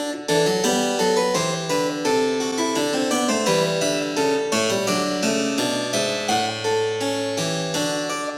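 Background music: a harpsichord-like keyboard playing a steady run of plucked notes.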